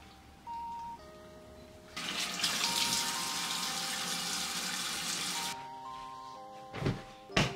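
Water running from a tap for about three and a half seconds, starting about two seconds in and stopping sharply, over soft background music. Two sharp knocks follow near the end.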